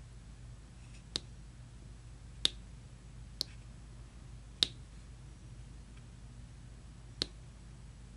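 Light, sharp clicks from hands-on craft work, five of them at uneven gaps of one to two and a half seconds, over a faint steady low hum.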